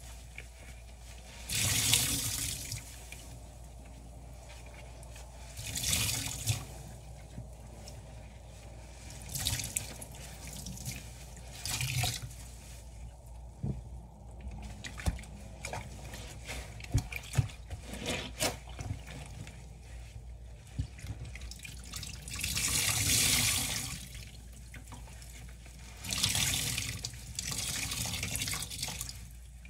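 Soapy water gushing and splashing into a stainless steel sink as wet bath sponges are squeezed and wrung by hand in rubber gloves, about six times. Between squeezes come small drips and squishes.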